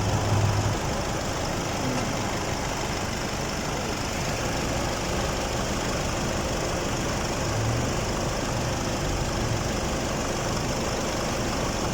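Hyundai D4CB diesel engine idling steadily after an overhaul that replaced its worn pistons, now running smooth and quiet without the earlier loud knock.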